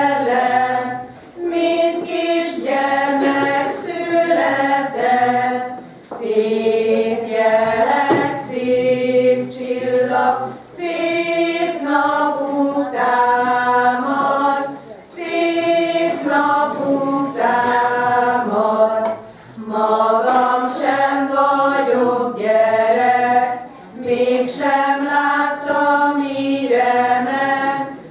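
A women's folk-song choir singing a Hungarian Christmas carol, phrase after phrase, with a short breath between phrases about every four to five seconds.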